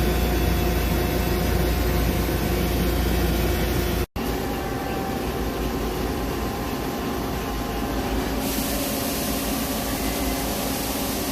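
Millac 853PF-5X five-axis CNC machining center running: a steady machine hum with a few held tones over a hiss. It breaks off sharply for an instant about four seconds in, and a brighter, higher hiss comes in about eight seconds in.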